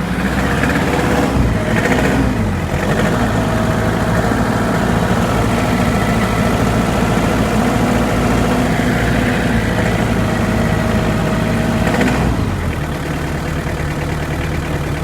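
Hyundai Porter engine running with a hard knock, its speed rising and falling a few times and dropping about twelve seconds in. The knock has remained even after the engine was replaced, and the owner cannot find its cause.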